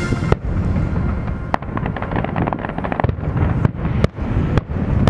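Fireworks bursting in a show finale: a run of sharp bangs over a low rumble, with a stretch of crackling in the middle. The show music cuts off just after the start.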